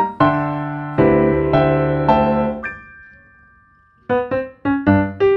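Background piano music: held chords in the first two and a half seconds fade out, and short, bright notes start again about four seconds in.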